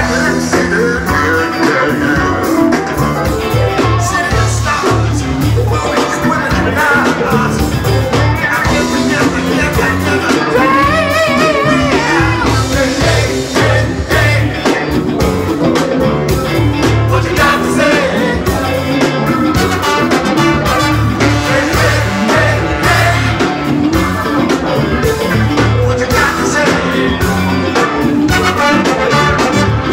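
Live funk-soul cover band playing with lead singing over a steady beat from drum kit and congas, with bass, electric guitar and saxophone.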